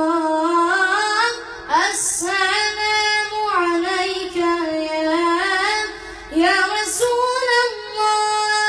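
A child's solo voice singing an Arabic nasheed unaccompanied, drawing out long held notes with ornamented glides between them, in several phrases separated by brief breaths.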